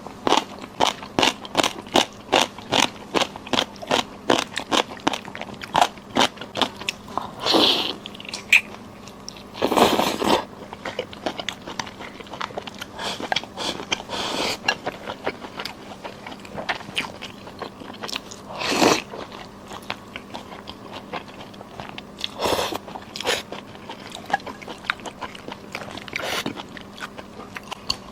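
A person chewing crunchy food close to the microphone: quick, crisp crunches about three a second for the first several seconds, then sparser chewing broken by a few longer noisy sounds, over a faint steady hum.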